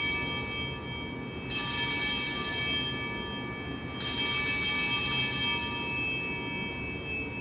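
Altar bells rung at the elevation of the chalice during the consecration. A ring already sounding fades, then two more rings come about a second and a half and four seconds in, each a bright cluster of high tones dying away slowly.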